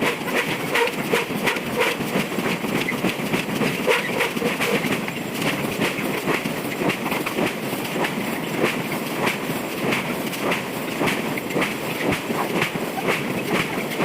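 Hydraulic forging hammer striking steel in a rapid, steady rhythm of heavy blows, a few a second, with no pause.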